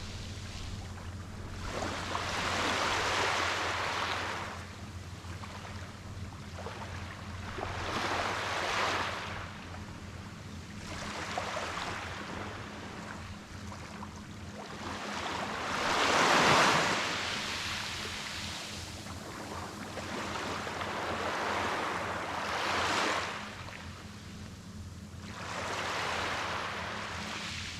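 Small ocean waves breaking and washing onto a beach, in surges every few seconds, the biggest about halfway through. A faint steady low hum runs underneath.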